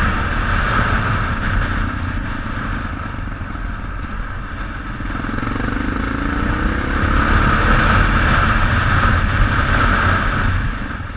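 Yamaha XT600 single-cylinder four-stroke engine running on the move, with wind rushing over a helmet-mounted microphone. Partway through, the engine note rises as the bike accelerates and grows louder, then eases off near the end.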